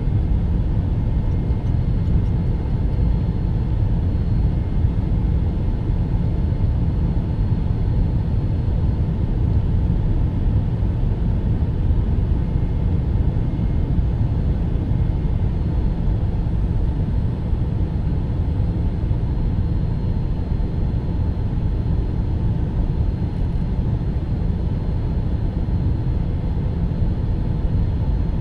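Boeing 767-300's jet engines at climb power just after takeoff, heard inside the cabin as a steady, dense low rumble with a faint steady whine over it.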